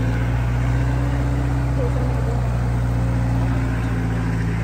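Off-road vehicle engine running steadily at an even speed, with faint voices in the background.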